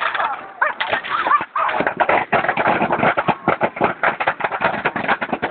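A large wooden bonfire crackling and popping hard, with rapid, irregular snaps of burning timber.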